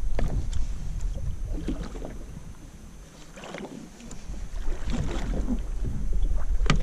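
Wind buffeting the microphone on a small boat, with water sloshing and a few sharp knocks, the loudest near the end.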